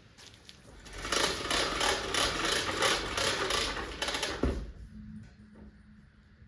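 VEVOR 50-foot retractable air hose reel turning, clattering with regular ratchet clicks about four a second for a few seconds and ending in a thump.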